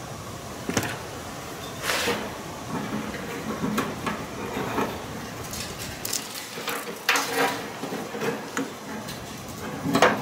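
Irregular clunks, clicks and light rattles of a part being handled and fitted against the sheet-metal casing of a gutted microwave oven, with a sharper knock about 2 s in, another about 7 s in, and the loudest near the end.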